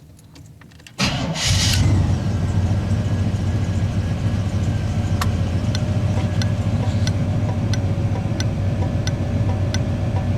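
1981 Chevy Silverado's Quadrajet-carbureted V8 fires up on a quick warm start about a second in, then idles steadily. From about halfway through, an HM 552 thermal turn-signal flasher relay clicks evenly about one and a half times a second, flashing faster on the full voltage of the running engine.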